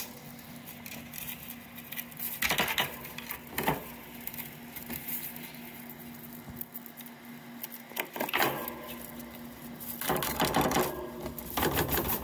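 Mini Rex rabbit digging furiously at hay on its cage floor: rapid scrabbling and scratching of claws through hay against the plastic floor. It comes in short bursts, three of them in the first nine seconds, then a longer run from about ten seconds in.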